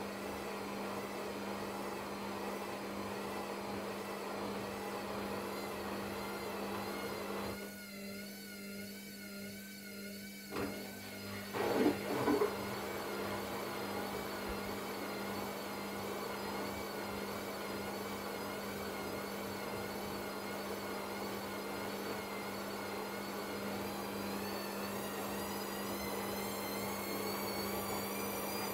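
Hisense front-loading washing machine on its spin cycle: the motor and drum run with a steady, slightly wavering whine over a low hum. About twelve seconds in there is a brief louder clatter, and a high whine rises slowly in pitch over the last few seconds.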